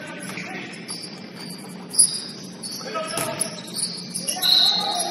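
Basketball game sounds echoing in a gym: a ball bouncing, with one sharp knock about two seconds in, and short high sneaker squeaks on the court. Players' voices call out now and then.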